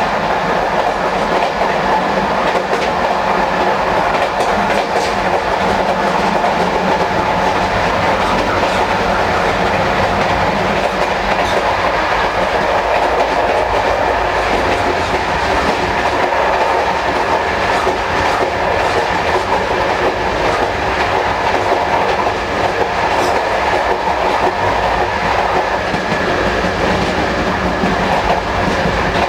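Moving Corail passenger coaches heard from the gangway between them: a steady, loud rumble and rattle of the wheels on the rails, with a few faint clicks.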